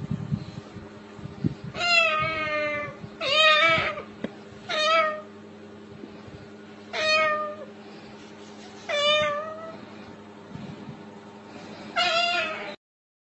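Six drawn-out meows, each about half a second to a second long, a second or two apart. All sound out over a faint steady background hum.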